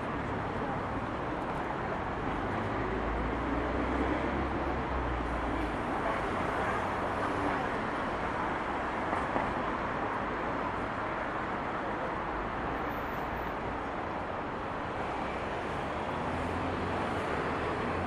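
City street ambience: a steady wash of traffic noise with a low rumble of passing vehicles swelling a few seconds in and again near the end.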